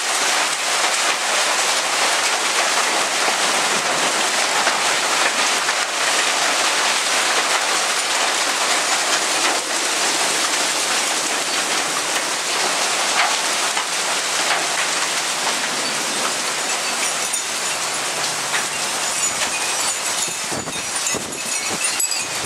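Hailstorm: hailstones pelting down steadily, a dense hiss of stones striking the ground and nearby surfaces. In the last few seconds the hiss thins a little and sharper separate hits and a few low knocks stand out.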